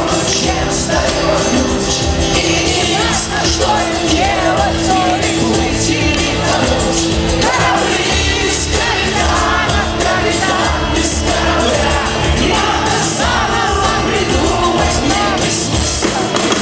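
Live rock band playing loudly and continuously, with voices singing over it.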